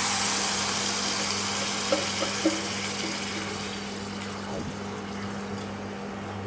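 Wet soaked rice sizzling as it goes into hot masala in a pressure cooker, loud at first and dying down steadily, with a couple of light spatula knocks about two seconds in over a steady low hum.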